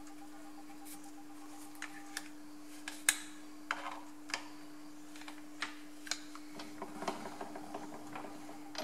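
Irregular light metallic clicks and taps as the screws on a metal lathe carriage stop are backed off and the stop is handled, over a steady low hum.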